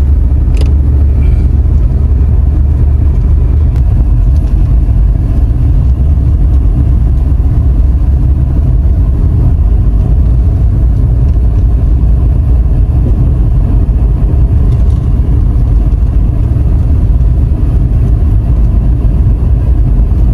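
Car cabin noise while driving: a steady low rumble of engine and tyres on the road, with one short click about half a second in.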